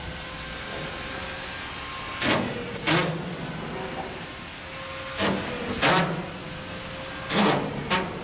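Sharp bangs from work fastening sheathing panels to wall framing. They come in pairs about half a second apart, three pairs roughly two and a half seconds apart, over a steady background hum.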